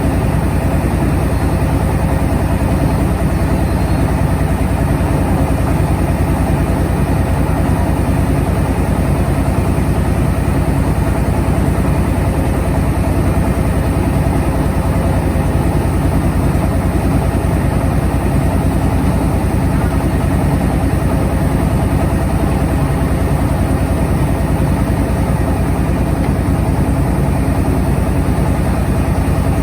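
The engine of a truck-mounted mobile rice mill running steadily at a constant, even pace.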